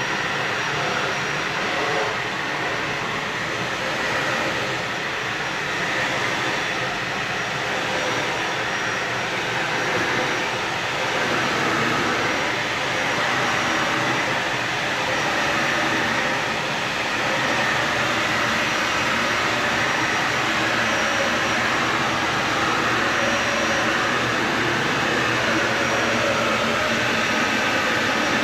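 Dyson vacuum cleaner running steadily, a dense rushing motor noise with a faint thin high whine above it.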